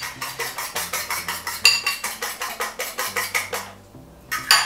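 Eggs being beaten with a fork in a bowl: rapid, even clicking of the fork against the bowl, about six strokes a second, which stops near the end, followed by one louder clink.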